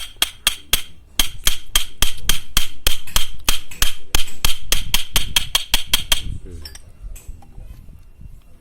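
Rapid metal-on-metal hammer blows, about four or five a second, each with a ringing note. They stop about six seconds in, leaving a few faint taps.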